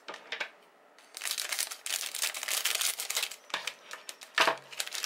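Clear plastic bags around plastic model kit runners crinkling and crackling as they are handled and slid across the table, in an uneven string of rustles after a short lull about a second in. Two brief low hums come near the end, the second louder.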